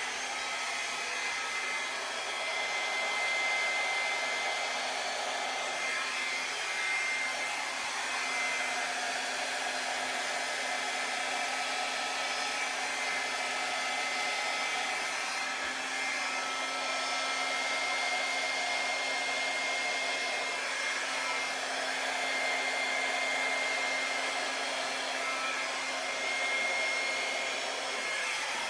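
Small hand-held hair dryer running on low, a steady rush of air with a thin high whine and a faint low hum, its sound shifting a little as it is moved about.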